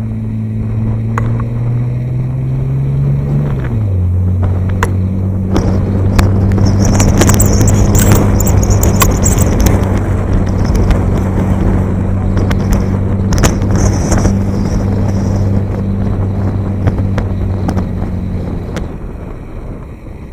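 A parked car's engine running with a steady low hum that drops in pitch a few seconds in, then holds and stops near the end. A rushing noise swells over it through the middle.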